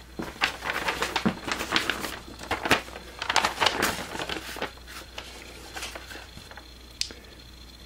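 A paper schematic sheet being handled: irregular rustling and crinkling with small clicks for about the first five seconds, then a single click near the end.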